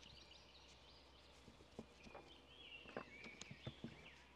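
Near silence: faint birdsong from the surrounding woods, with a few light clicks and taps in the second half as a small screwdriver and the shotgun are handled and the screwdriver is set down on the table.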